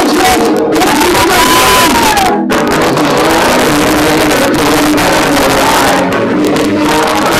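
Live worship music: a man singing the lead into a microphone with the congregation and instruments, recorded loud. The sound drops out for a split second about two and a half seconds in.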